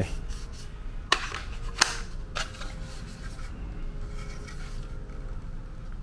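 Plastic wall-mount bracket of a cordless stick vacuum being handled and turned over: light rubbing with two sharp clicks about a second and nearly two seconds in, and a softer click soon after, over a low steady hum.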